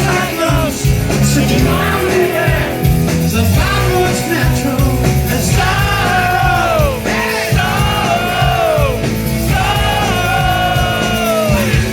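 Live rock band playing loudly with electric guitars, bass and drums, and a male lead singer holding long notes that slide down in pitch at the end of each line.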